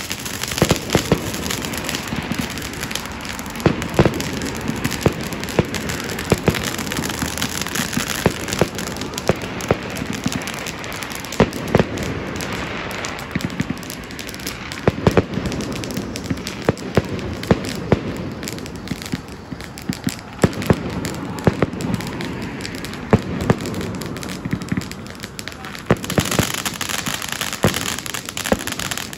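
Ground fireworks spraying sparks: a continuous dense crackling with many sharp bangs scattered throughout.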